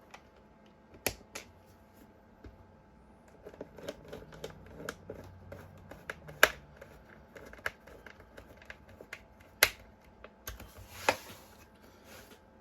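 Scattered small clicks and taps of screws and a hand screwdriver working on an e-bike battery case as it is screwed back together, with a few sharper clacks and a brief scrape near the end.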